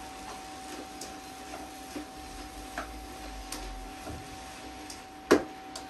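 Kitchen utensils lightly clicking and tapping while a vegetable filling is cooked in a pan, with one sharp knock about five seconds in, over a steady hum.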